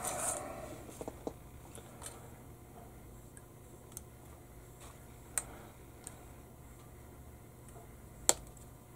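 A few scattered sharp clicks of plastic model parts being cut from the kit's sprue and handled at the bench, with the loudest click near the end, over a faint steady hum.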